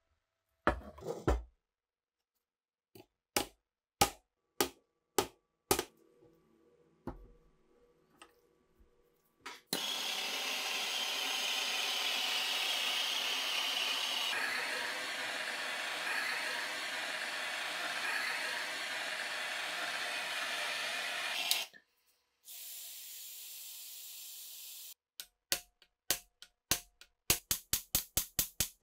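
A handheld gas torch burning with a steady hiss for about twelve seconds as it heats the rusted steel receiver. Before it come scattered sharp metal clicks from handling the parts, and near the end a quick, evenly spaced run of taps.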